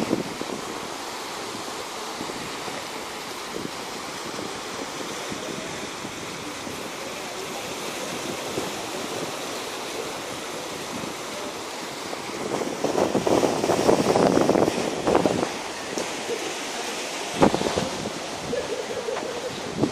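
Sea waves washing over a rocky shore, a steady hiss of surf that swells louder for a couple of seconds about two-thirds of the way through.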